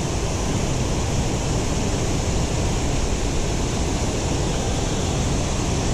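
Steady rush of water pouring over a rock-ledge spillway waterfall.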